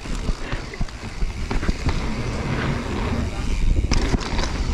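Mountain bike riding down a dirt trail, heard from a camera on the rider: tyre noise and wind rumble on the microphone, with frequent sharp clatters of the bike over bumps, louder about four seconds in.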